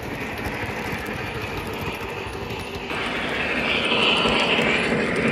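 O gauge three-rail model train running past: the Lionel Vision Line Niagara steam locomotive with its passenger cars, wheels rumbling steadily on the track. The sound changes abruptly about three seconds in and grows louder, with a stronger hiss on top.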